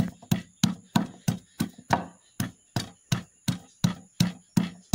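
Wooden pestle pounding raw turmeric in a mortar: an even run of dull thuds, about three strikes a second.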